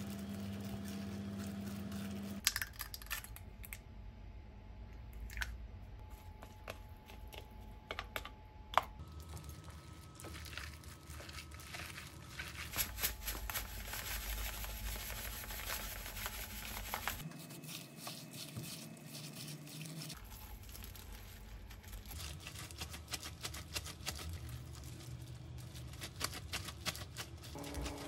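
Hands in thin plastic disposable gloves kneading ground meat in a glass bowl: crinkling of the plastic gloves and soft squishing of the meat, with irregular light clicks. A steady low hum sounds for the first couple of seconds.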